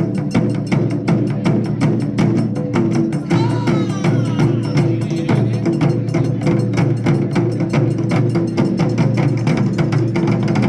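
Japanese taiko drum ensemble playing: several drummers striking barrel drums with sticks in a fast, even beat of sharp strokes.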